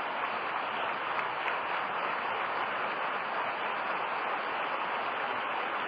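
A large audience applauding steadily, a sustained ovation from a standing crowd.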